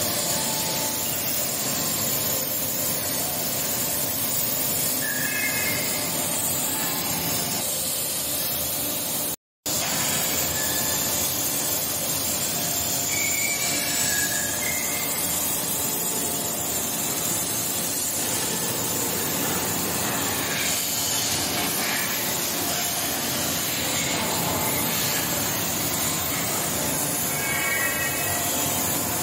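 Steady hiss and rumble of forge-shop machinery around an electro-hydraulic forging hammer, with a few short high squeals. The sound drops out to silence for a moment about a third of the way through.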